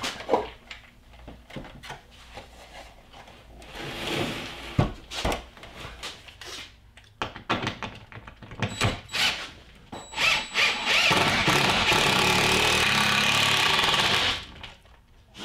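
Cordless impact driver sinking a roughly 1/4-inch lag bolt through a wooden panel into a wall stud. It gives a few short bursts, then runs steadily for about three seconds and stops near the end. Before that, scattered knocks and thumps come from handling the panel against the wall.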